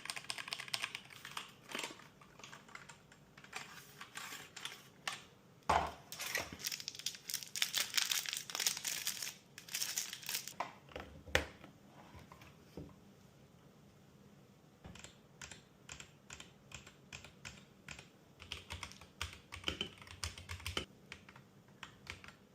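Packaging being handled, with crinkling and rustling mixed with clicks. After a short lull a little past the middle, keys of a Hall effect magnetic keyboard are pressed, giving irregular runs of separate key clicks.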